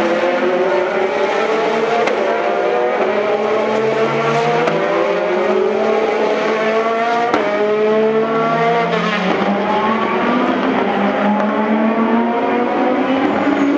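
Several Ferrari GT2 race cars' V8 engines running hard, their pitch climbing as they accelerate and dropping back at each upshift, with more than one car heard at once.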